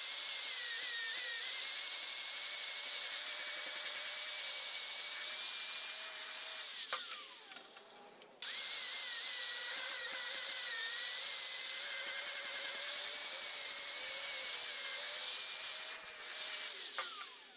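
Angle grinder dressing the torch-cut edge of a thick steel plate held in a vise, with a steady whine. It runs for about seven seconds, winds down, starts again sharply about a second and a half later, and winds down once more just before the end.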